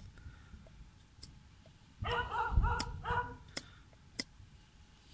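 A dog barks three times in quick succession about two seconds in, the loudest sound here. Around it come a few sharp clicks as a carving knife cuts chips from the wooden board's edge.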